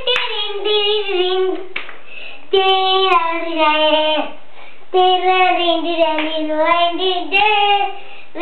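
A young child singing a tune in a high voice, in three phrases with short pauses between them.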